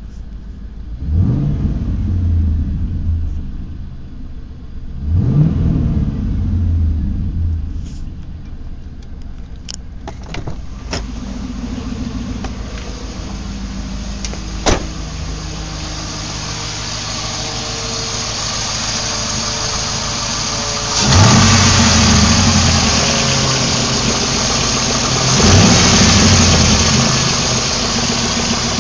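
GM LS1 5.7-litre V8 running, revved briefly four times: twice near the start and twice in the second half. A few sharp clicks sound in between, and a steady hiss grows louder over the second half. The owner calls the engine's noise weird, cause unknown.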